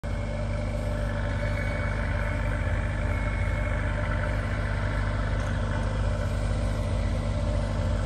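A heavy-equipment engine running at a steady idle, with a constant low hum and a few steady higher tones.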